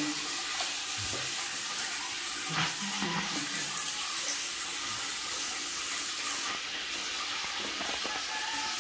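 Water running steadily from a tap, an even hiss with no break.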